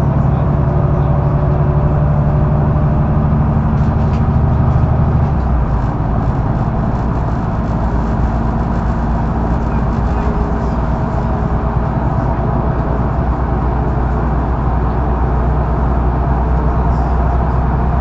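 Mercedes-Benz O530 Citaro intercity bus under way, its diesel engine and drivetrain heard from on board. About five seconds in the engine note drops abruptly to a lower pitch, as at a gear change of the ZF automatic gearbox, then runs on steadily.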